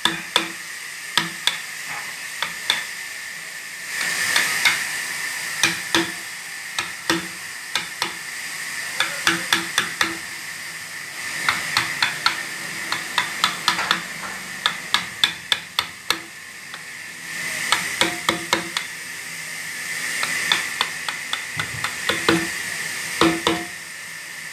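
Mallet striking a wood-carving chisel as it cuts into a wooden figure: short sharp taps in irregular runs of a few at a time, with a steady hiss behind that swells now and then.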